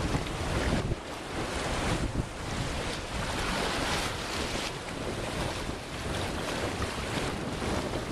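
Wind buffeting the microphone: a steady rushing noise with a low rumble that swells and eases every second or two.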